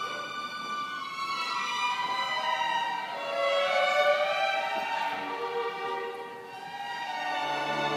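Youth string orchestra playing, violins carrying a slow melody over held chords; the music softens a little past six seconds and swells again.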